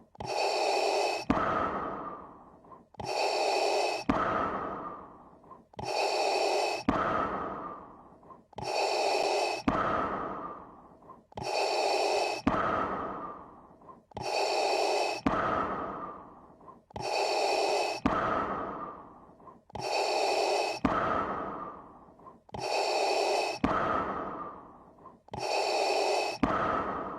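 Darth Vader's breathing sound effect: about ten slow, even breath cycles, one roughly every three seconds, each a steady intake followed by a fading exhale.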